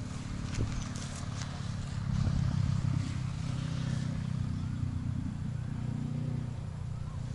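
A low, steady engine hum, a little louder for about a second around two seconds in.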